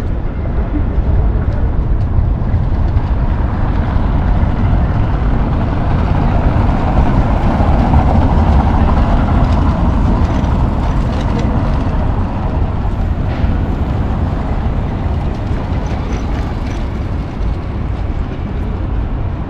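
Steady city road-traffic noise with a deep rumble, swelling about eight seconds in as a vehicle passes close by, then easing off.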